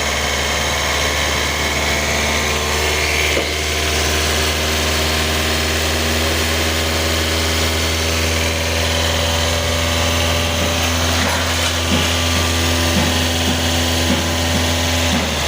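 An engine running steadily, with a strong low hum, several steady tones and a broad hiss, cutting off abruptly at the end.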